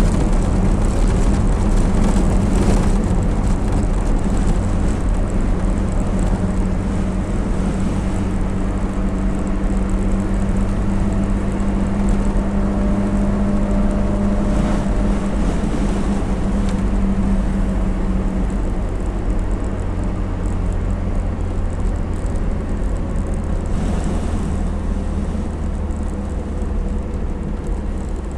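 IZh-2717 van driving, its engine running steadily under road noise inside the cab, with a few short knocks or rattles from the body.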